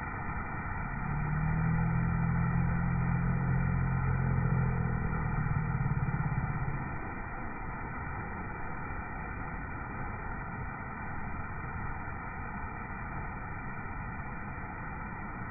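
Water fountain splashing as a steady, even rush. A low engine-like hum swells in about a second in and fades out about seven seconds in.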